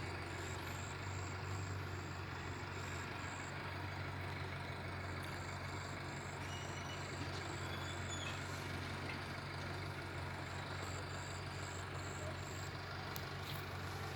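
A steady low engine drone, with a faint high-pitched pulsing at about three pulses a second over it.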